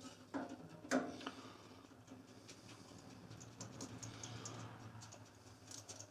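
Light metal clicks and knocks of hand tools and bearing guide hardware being handled while the guide assembly is fitted to the bandsaw, with a sharper knock about a second in and scattered ticks after it.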